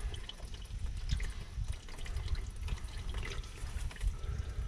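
Old, sludgy engine oil draining in a steady stream from a big-block engine's oil pan, splattering off the tie rod that sits in its path and pattering down with many small drips.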